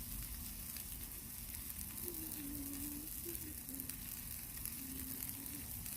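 Breaded chicken thighs sizzling steadily on a hot Blackstone flat-top griddle.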